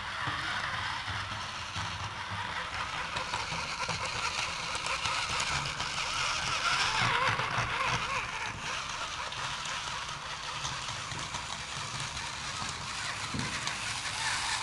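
Small electric gear motors and rubber tracks of a tracked line-following robot running steadily as it drives along.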